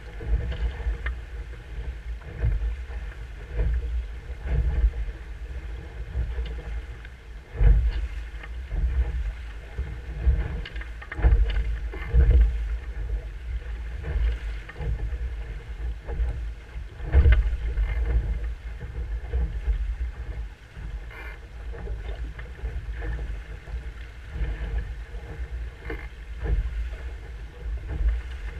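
Water rushing and splashing past a Musto Skiff's hull as it sails fast downwind, with wind buffeting the microphone in a low steady rumble. Irregular heavier slaps and surges of spray come as the bow meets the chop.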